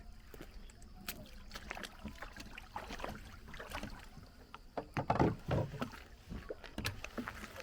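Small boat on the water: irregular knocks and water noise around the hull, loudest about five seconds in.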